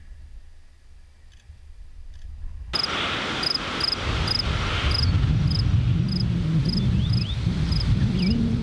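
A low rumble at first, then, about three seconds in, a sudden change to outdoor sound: a cricket chirping regularly, about two chirps a second, over wind rumbling on the microphone that grows louder.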